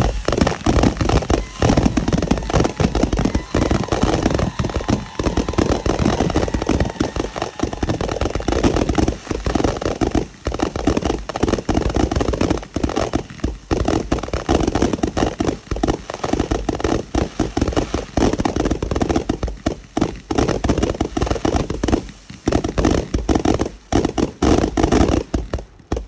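Fireworks going off in a dense, continuous barrage, many bangs and crackles overlapping with no pause, until it cuts off suddenly at the end.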